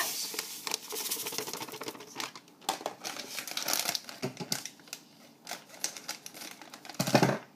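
Jam setting sugar pouring from its packet into the Thermochef bowl: a dense, uneven run of small ticks and crackles as the grains fall, with a short louder noise near the end.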